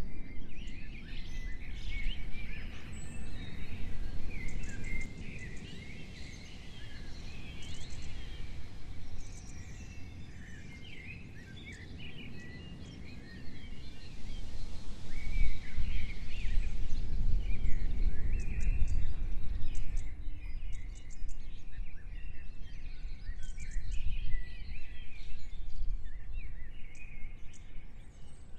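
Many songbirds chirping and calling over a low rumble, which grows louder for several seconds in the middle.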